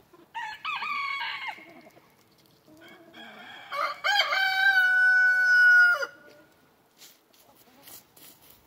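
Rooster crowing twice: a short crow at the start, then a longer, louder crow held for about two seconds from around four seconds in.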